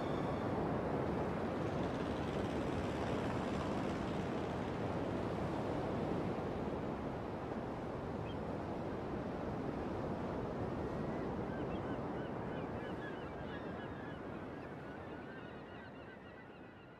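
Steady rushing outdoor ambience with birds calling, a flock's short calls becoming clearer about halfway through; the whole fades out near the end.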